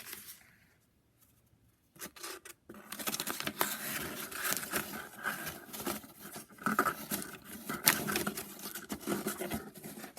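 Handling noise: a dense, irregular run of clicks, scrapes and rustles, starting a few seconds in.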